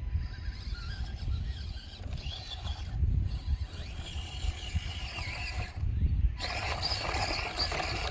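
Axial SCX24 micro RC crawler's small electric motor and gearbox whining as the truck drives, the pitch wavering up and down and the whine stopping briefly twice.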